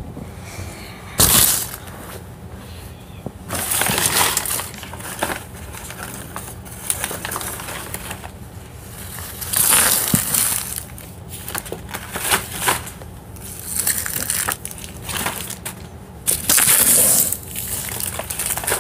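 Close, irregular rustling and crunching of scattered items being handled and gathered up from a floor, with several louder crackly bursts.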